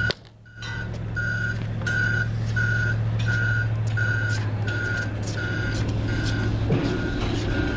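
Electronic warning beeper sounding about three times every two seconds over a steady low machine hum. Everything cuts out briefly just after the start.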